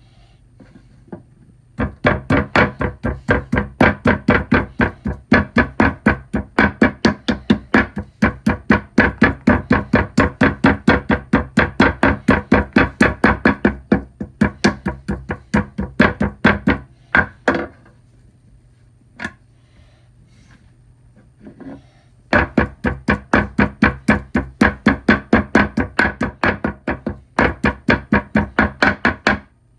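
Knife chopping rapidly on a cutting board, about four even strokes a second, in two long runs with a few single knocks in a pause between them.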